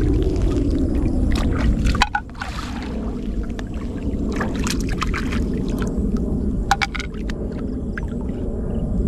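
Steady, muffled rush of river water, with scattered clicks and knocks as stones are moved while searching the riverbed for shellfish.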